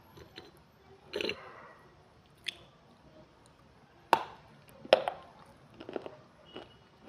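Dry baked clay being bitten and crunched close to the microphone: six or so separate sharp crunches and snaps, the loudest two about four and five seconds in.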